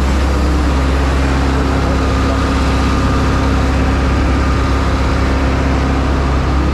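Steady engine and traffic noise as a motorcycle creeps between queued trucks, their diesel engines running close alongside, with a steady low hum that holds through most of it.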